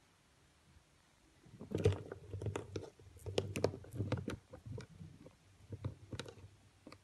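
A run of sharp, irregular clicks and taps, starting about one and a half seconds in, as a tarantula strikes a feeder worm and scrambles on the plastic floor of its tub.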